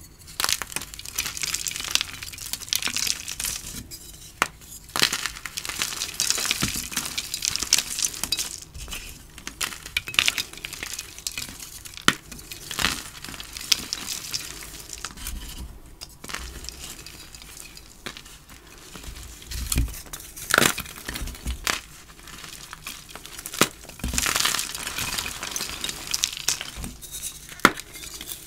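Hands crushing and crumbling dry blocks of dyed gym chalk: an irregular run of crisp crunches and crackles as the blocks break apart into powder.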